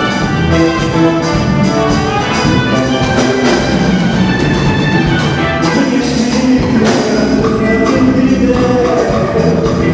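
Live gospel music from a band and choir: a full, steady instrumental arrangement with voices singing along.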